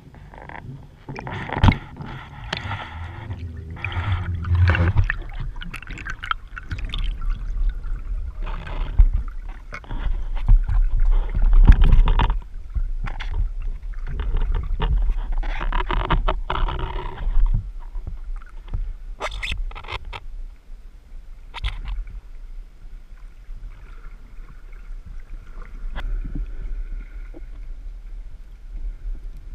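Raw underwater camera sound of a spearfisher in the sea: water rushing and gurgling against the camera housing, with sharp knocks and scrapes of gear, as he swims, surfaces and handles a speared fish on the spear shaft. It calms in the second half, where a faint steady whine comes in.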